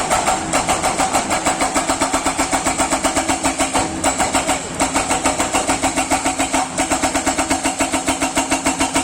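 Heavy machinery giving a rapid, even mechanical pounding at about six beats a second, with two brief breaks about four and seven seconds in.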